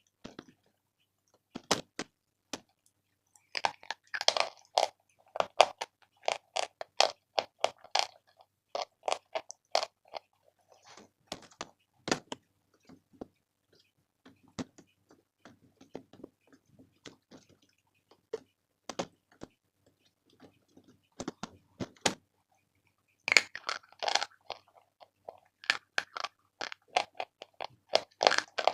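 Close-up crunching and chewing of chalk: clusters of sharp, crisp crunches as pieces are bitten and ground between the teeth, with short pauses between bites and softer chewing in between.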